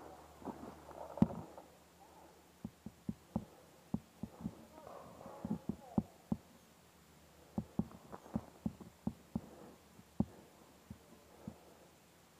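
Paintball markers firing during a game: a run of short, muffled pops coming irregularly in clusters, with one much sharper, louder crack about a second in.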